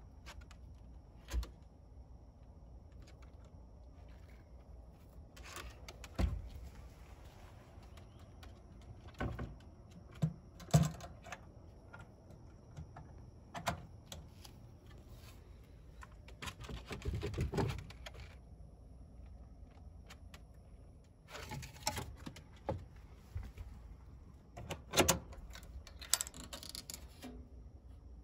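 Sporadic light clicks, knocks and a brief rustle from a wooden rabbit hutch as its small metal door latch is worked by hand and the rabbit moves about inside.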